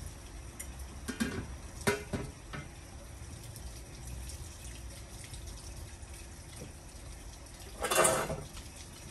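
A few sharp metal clinks in the first three seconds as a pot lid and ladle knock against an aluminium cooking pot while soup is served. A louder, brief clatter comes about eight seconds in.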